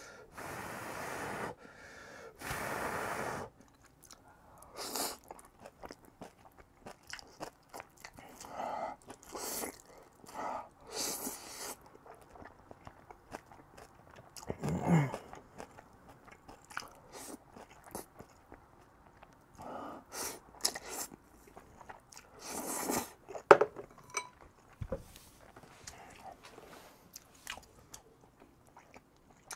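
Close-miked eating of black-bean-sauce instant noodles: long slurps of noodles between wet chewing, with lip smacks and small mouth clicks.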